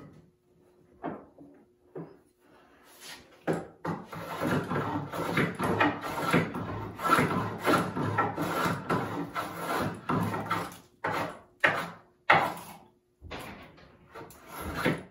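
Hand plane shaving the corner of a green white oak leg, chamfering it toward an octagon. A few separate rasping strokes come first, then a dense run of quick strokes for several seconds, then separate strokes again near the end.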